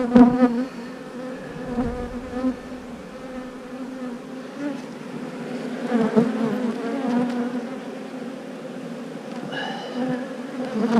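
Honeybees flying around an open hive, a steady buzzing hum that wavers in pitch, from the many bees stirred up while the hive is opened and worked. A brief knock sounds right at the start.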